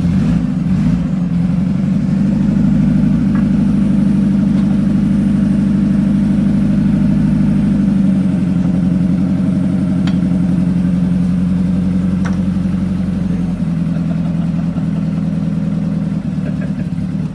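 Forklift engine running steadily while the forklift's mast lifts an engine cylinder block. The note shifts slightly a couple of times, and the engine cuts off at the very end.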